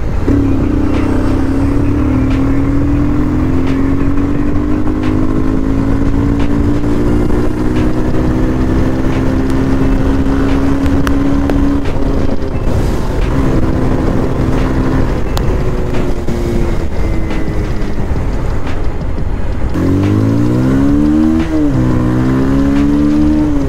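Bajaj Pulsar 220F's single-cylinder engine running under way, its note climbing slowly and steadily for about twelve seconds, with wind noise on the helmet microphone. Near the end the note drops as the throttle is eased, then climbs again.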